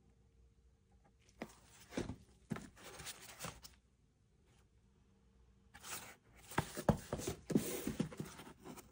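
Small cardboard product boxes handled by gloved hands and slid and set down on a wooden desk: rustling, scraping and soft knocks, once starting about a second and a half in and again, busier, from about six seconds in.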